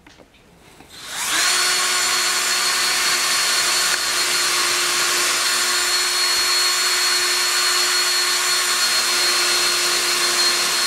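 Cordless drill running at a steady speed, boring a pilot hole through the wooden face frames of two clamped kitchen cabinets. It starts about a second in and holds one even pitch throughout.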